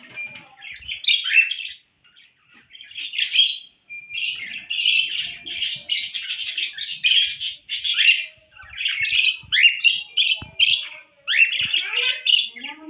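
Small pet parrots chirping and chattering in quick, high notes: a few short bursts at first, then near-continuous chatter from about four seconds in.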